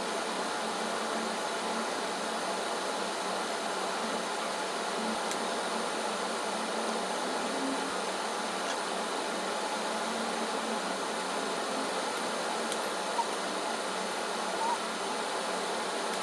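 Steady background noise: an even, airy hiss with a faint hum and no clear source, broken by a couple of faint small clicks in the second half.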